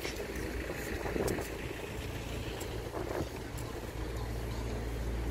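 Outdoor pedestrian-street ambience with a steady low wind rumble on the microphone and a couple of faint passing voices.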